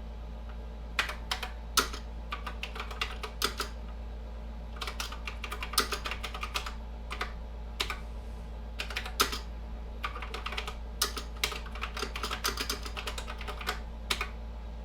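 Keys being typed on a keyboard in irregular runs of clicks, with a short pause partway through, over a steady low hum.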